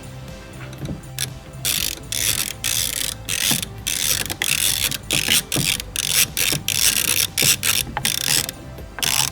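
Socket ratchet on a deep socket and extension clicking in short repeated strokes, about two a second, starting about a second and a half in, as it backs a 5/16 nut off a door-handle stud.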